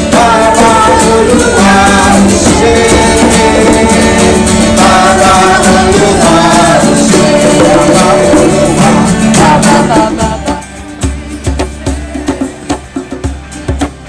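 Live group music: voices singing over strummed acoustic guitars and djembe hand drums. About ten seconds in the singing drops away, leaving sharp djembe strokes and guitar.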